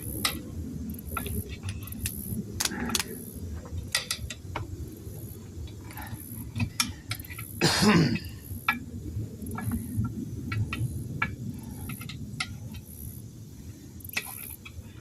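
Steel tire irons clinking and knocking against a wheel rim in scattered sharp strikes as the tire bead is pried off by hand on a manual tire changer. One louder, brief squeal comes about halfway through.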